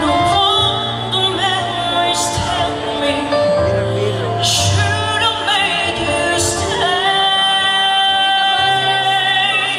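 A young woman singing solo into a microphone over instrumental accompaniment, amplified through the hall's loudspeakers, holding long notes over a steady bass line.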